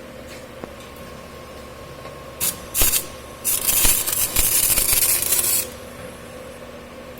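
CO2 MIG welding torch on pipe: two short bursts of hissing, then a burst of about two seconds, over the steady hum of the welding machine.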